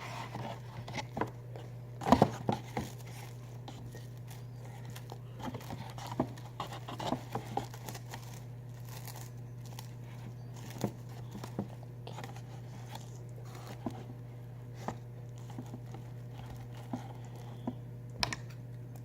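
Plastic wrap crinkling and small pieces of tape being pulled and torn as they are pressed onto a cardboard shoebox, in scattered rustles and clicks, busiest about two seconds in. A steady low hum runs underneath.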